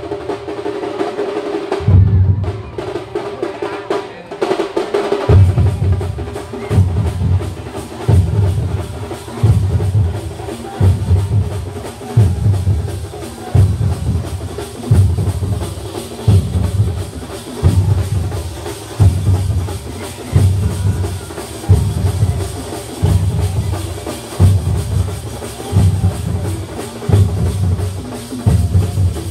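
A percussion troupe drumming the climactic finale (kalashakottu) of its performance. After a short lull in the first few seconds, deep drum beats fall steadily about once a second over continuous drumming.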